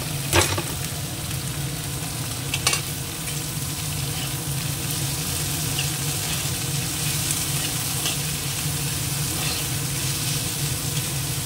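Shredded cabbage, carrot and capsicum sizzling in hot oil in a kadai while a steel spatula stirs and tosses them. Two sharp clacks against the pan, about half a second in and again near three seconds.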